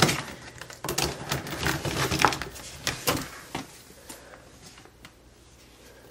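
Plastic clicks and knocks from clear drop-front shoe boxes, with a sneaker being handled and taken out. The rattle is busiest for the first three and a half seconds, then fades to faint handling.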